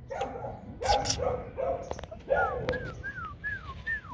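Hmong bobtail puppies giving several short yips and barks. In the second half comes a run of five quick, high, falling whistled notes, about two or three a second.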